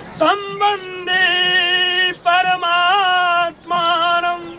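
A single voice singing in long held notes that slide and waver, with short breaks between phrases.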